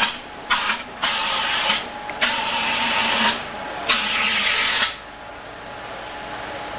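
Hand-held fire extinguishers discharging onto a burning car, several short bursts of loud hissing spray one after another. The spraying stops about five seconds in.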